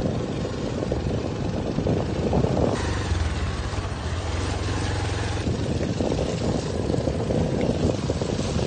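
Motor vehicle driving along a rough dirt track: a steady engine drone mixed with wind and road rumble, the engine note running steadier for a few seconds in the middle.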